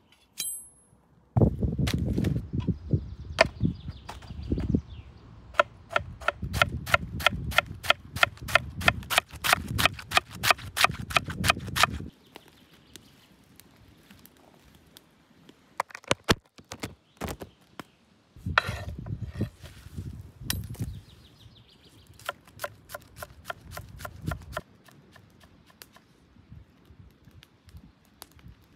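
Knife shredding a cabbage on a wooden board: a steady run of crunching cuts, about three strokes a second, in two long bouts with a pause between.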